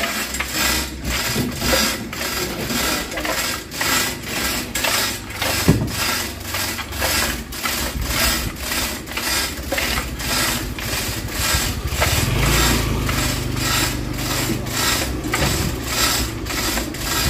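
Steady, rhythmic mechanical clacking at about two to three strokes a second. A low rumble joins about twelve seconds in.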